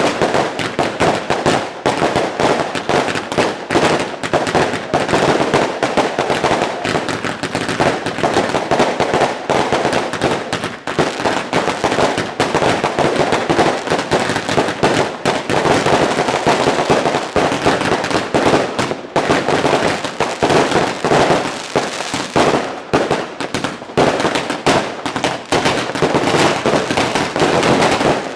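New Year's Eve fireworks and firecrackers going off nonstop: a dense, continuous barrage of bangs and crackling, many overlapping with no breaks.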